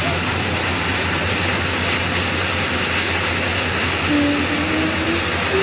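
Ballast hopper wagon rolling slowly along new track while crushed-stone ballast pours out of its bottom chute onto the rails, a steady rushing rattle over a low rumble. Short squealing tones come in about four seconds in.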